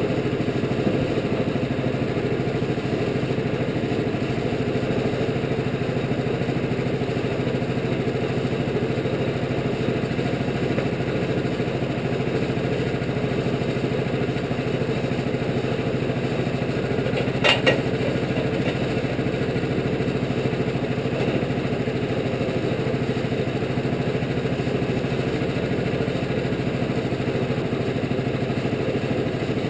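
Engine of a Wood-Mizer LT15 portable bandsaw mill running steadily, with no cutting sound. Just over halfway through there is a sharp double knock.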